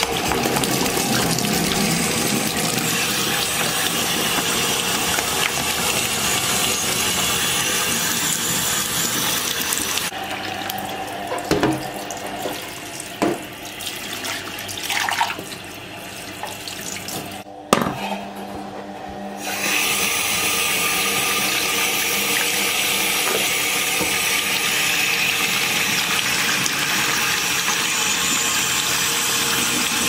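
Kitchen tap running hard into a stainless-steel sink filling with soapy water. About ten seconds in the flow stops and a few knocks and splashes follow as a mug is rinsed. The tap runs steadily again from about twenty seconds in.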